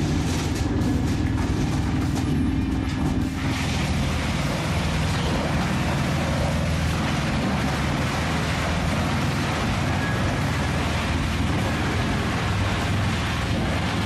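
Industrial wood chippers running under load and chipping logs: a loud, steady, dense grinding noise. During the first three and a half seconds, logs are fed in by a grapple, with a steady hum and sharp cracks. After that comes the denser, even din of a belt-driven stationary chipper feeding chips onto a conveyor.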